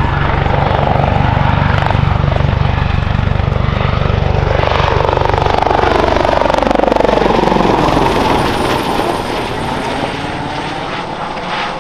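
Airbus Helicopters EC120B Colibri with a Turbomeca Arrius 2F turboshaft flying past overhead: fast rotor blade thudding with a whine that falls in pitch as it passes. The thudding stops about two-thirds of the way in, and the sound then fades as the helicopter climbs away.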